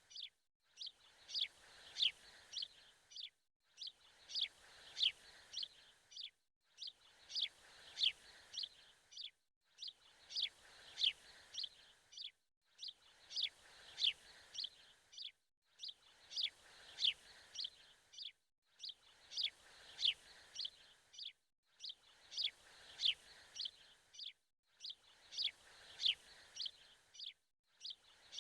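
Birds chirping: a few quick high chirps in a short clip that repeats about every three seconds, each repeat followed by a brief gap of silence.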